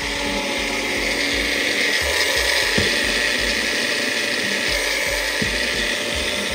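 Electric blender or mixer grinder running steadily, grinding ingredients.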